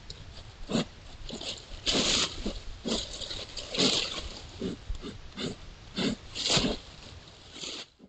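White-tailed buck feeding close by with its nose in dry leaf litter: irregular short bursts of rustling and crunching as it noses through the leaves and chews.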